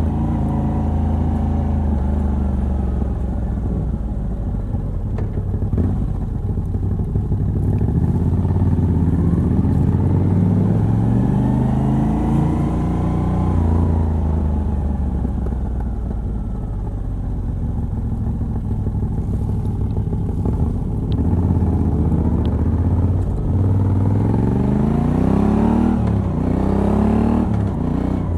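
Moto Guzzi V85TT's air-cooled transverse V-twin, running through a stock exhaust with a decat pipe, heard from the rider's seat. It rises in pitch under acceleration, falls back as the throttle eases, and climbs again near the end with a brief dip in between.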